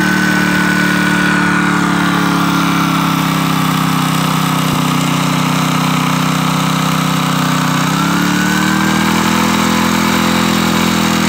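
Small engine of a hydraulic compression pump running steadily while a die head presses a joint sleeve onto high-voltage conductor. Its pitch sags slowly under load, then rises again about eight seconds in.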